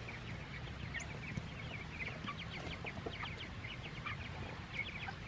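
Young chickens peeping: a fast, irregular run of short, high cheeps, faint, over a low steady background noise.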